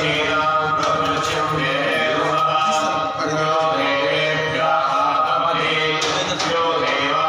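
Male voices chanting mantras in a steady, sustained melodic chant for a Hanuman abhishekam.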